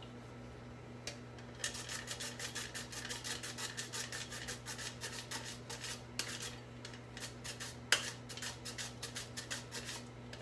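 Cucumber being pushed back and forth over a mandoline's julienne blade: quick, repeated rasping strokes, several a second, starting a moment in, with a short break midway and one sharp knock near the end.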